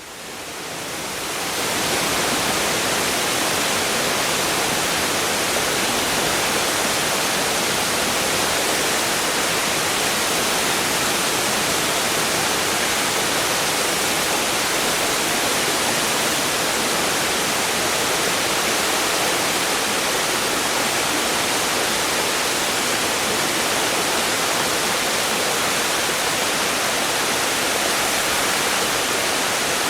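Largish waterfall with a constant hiss of turbulent water, with some gurgling and splashing. It fades in over the first couple of seconds and then holds steady.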